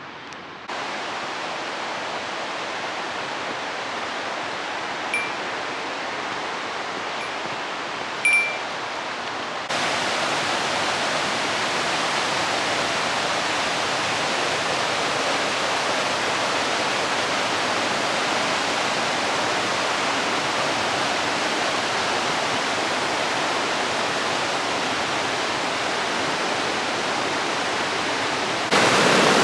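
A mountain stream rushing over rocks in a steady noisy rush, which becomes louder and closer about ten seconds in. A small bird chirps briefly twice over the water early on.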